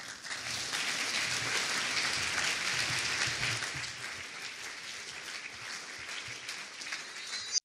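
Audience of a full hall applauding, a dense patter of many hands clapping that swells in the first seconds, eases a little, and cuts off suddenly near the end.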